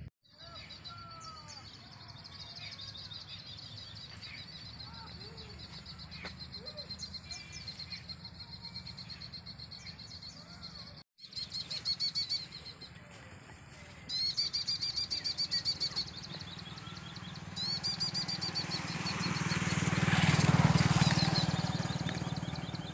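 Small birds chirping in quick repeated runs, with other scattered bird calls, over a steady low wind rumble; a gust of wind on the microphone swells to the loudest point near the end. The sound drops out for a moment about eleven seconds in, at a cut.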